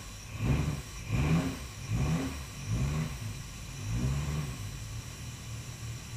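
Classic car's twin-cam straight-six just after a cold start, its revs swinging up and down about five times, then settling into a steady idle about five seconds in.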